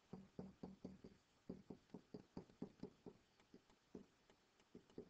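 Faint, irregular light tapping and ticking of a stylus on a tablet screen as a word is handwritten, a few taps a second.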